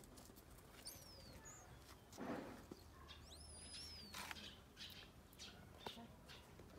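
Faint bird chirps: two short, high whistled calls, one about a second in that falls in pitch and a longer rising-and-falling one around three seconds in, with a brief rustle between them.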